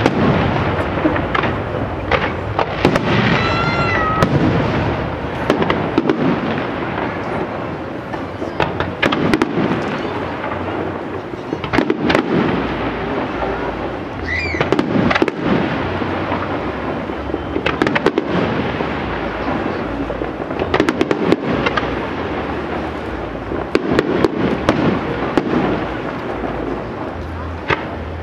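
Aerial fireworks display: a dense, continuous run of shell bursts, booms and crackling, with sharp bangs coming irregularly, several a second at the busiest.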